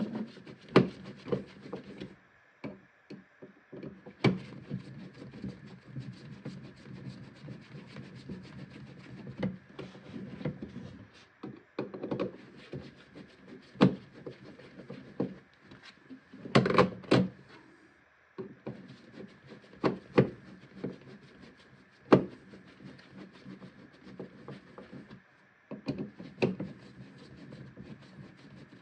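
A hand screwdriver working on a GFCI receptacle in a wall box: scattered clicks, scrapes and light knocks of the tool and the device against the box, the loudest cluster of knocks about 17 seconds in.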